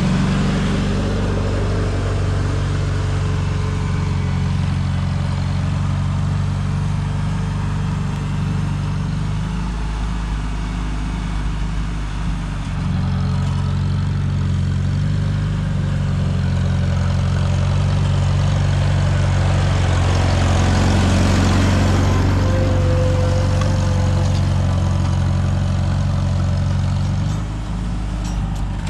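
Farmall tractor engine running steadily under the load of pulling a plow through garden soil. Its note shifts about ten seconds in and again near the end.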